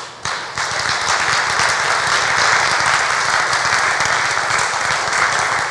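Congregation applauding: many people clapping together, starting just after a brief pause, holding steady and easing off slightly near the end.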